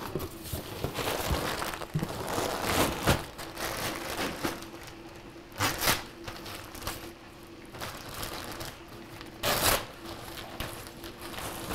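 Plastic packaging crinkling and cardboard boxes rustling as packages are handled and unpacked, with a few louder crinkling bursts. A steady faint hum runs underneath.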